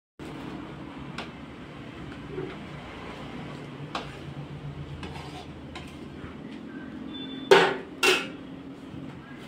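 Metal cooking pots and steel utensils clinking and clanking: a few light clinks, then two loud ringing clanks about half a second apart near the end, over a steady low background noise.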